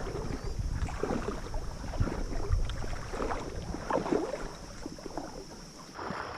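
Someone wading through shallow marsh water, with irregular sloshing and splashing strokes that ease off near the end.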